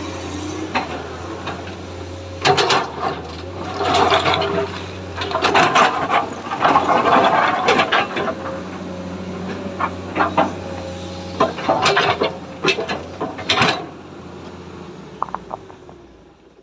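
Hydraulic excavator's diesel engine running with a steady low hum, under repeated loud bursts of rushing, scraping noise and a few sharp clatters from the bucket working. Near the end the noise and the engine hum die away.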